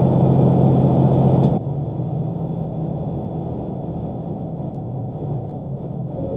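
Steady drone of a semi-truck's engine and road noise heard inside the cab, with a strong low hum. About a second and a half in it drops abruptly to a quieter drone of the same kind.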